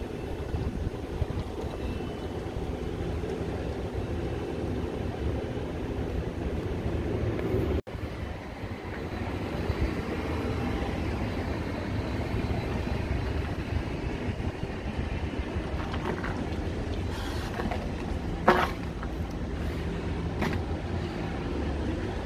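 Diesel bus engines running with a steady low rumble. There is a sharp knock near the end, with a few lighter clicks around it.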